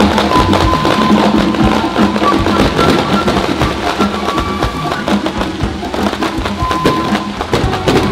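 Loud music mixed with many short, sharp crackles and pops from ground fireworks (fountains and comets) firing.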